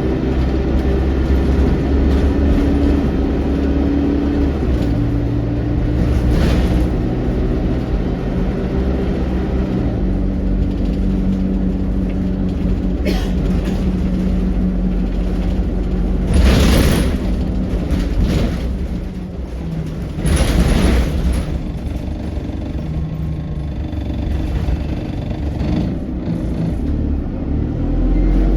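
ADL Enviro200 single-deck bus heard from on board while driving: steady diesel engine and road rumble, the engine's tones stepping in pitch several times as the automatic gearbox shifts. Two short bursts of hiss, each about a second long, about two-thirds of the way through.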